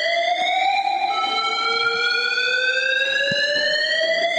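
Emergency alert alarm announced for Quito, Ecuador: a loud, harsh electronic tone that slowly rises in pitch, joined about a second in by a second tone that also rises.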